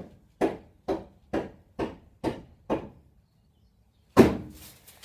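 Footsteps on the floor of a truck's box body, about two steps a second, then a pause and a single loud thump about four seconds in.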